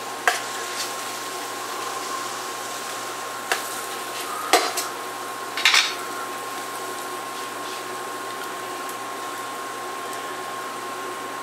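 A metal spatula clinks and scrapes against a stainless steel skillet while eggs and vegetables are stirred, a few sharp knocks in the first six seconds. After that, only a steady hiss from the pan cooking on the hob.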